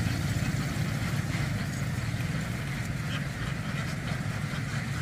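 Livestock truck's engine idling, a steady low rumble.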